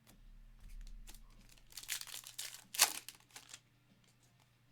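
A trading-card pack wrapper being torn open and crinkled, with the loudest rip a little past the middle.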